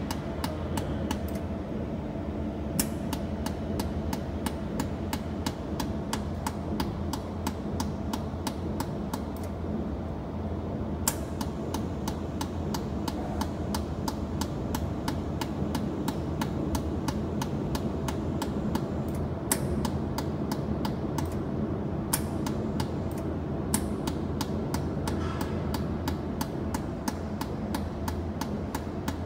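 Jewelry laser welder firing pulses on stainless steel: a long run of sharp snapping clicks, about three a second, a few louder than the rest, over the machine's steady hum.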